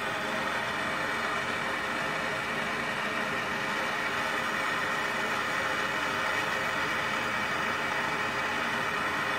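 Handheld propane torch burning with a steady hiss as its flame heats a subframe bushing, softening the glue and the plastic insert so the bushing can be pressed out.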